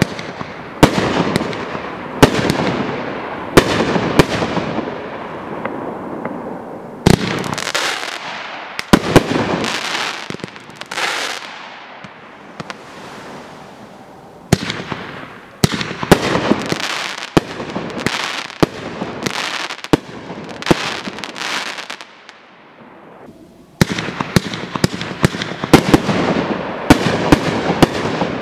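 500g consumer firework cakes firing a run of shots. Each shot is a sharp bang followed by a fading, hissing tail. The firing eases to a lull a little past twenty seconds in, then a second cake starts with a dense run of bangs.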